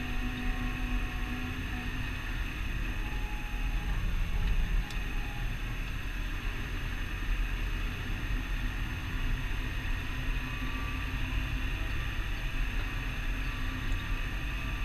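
Massey Ferguson 6480 tractor's six-cylinder diesel engine running steadily at road speed, heard from inside the cab: a steady low rumble with a faint high whine over it.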